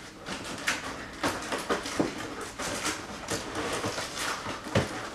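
Hands tearing at a heavily taped cardboard shipping box: irregular crackling, ripping and scraping of cardboard and packing tape as the flaps are pulled open.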